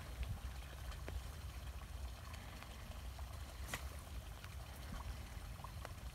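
Water trickling and dripping faintly as a cast net is dragged through shallow water and hauled in by hand, over a low rumble, with one sharp click about halfway through.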